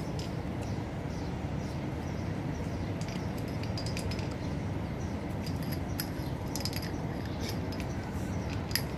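Steady low outdoor rumble with scattered light clicks and ticks, more frequent in the second half.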